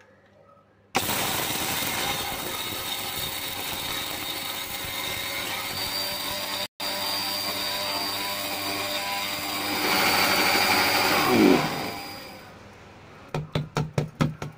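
Electric mixer grinder grinding whole spice seeds in its steel jar: the motor starts abruptly about a second in, cuts out for an instant midway, runs louder for a while, then is switched off and winds down with a falling whine. A quick run of about six clicks follows near the end.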